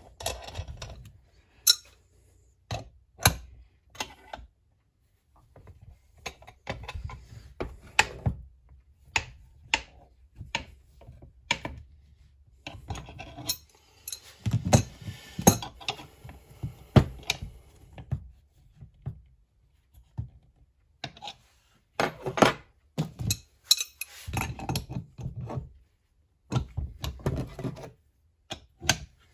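Irregular metallic clinks, clicks and knocks from hand tools: a ratchet and wrench turning a crankshaft installation tool that draws the crankcase halves of an MS660-clone chainsaw together.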